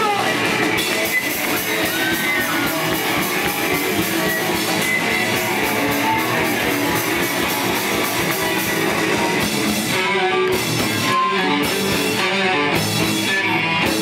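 Live pop-punk band playing loud: electric guitars and a drum kit going full tilt, breaking into choppy stop-start hits in the last few seconds.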